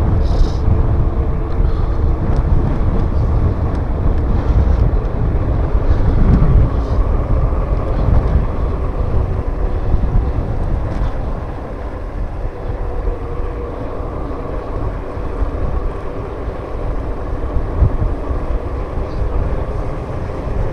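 Wind buffeting the microphone while riding a Bosch electric bike, a heavy, steady rumble. Under it runs the steady whine of the bike's Bosch mid-drive motor under pedal assist.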